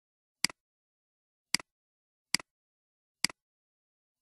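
Computer mouse clicks: four sharp clicks at uneven intervals, each a crisp press followed at once by a softer release.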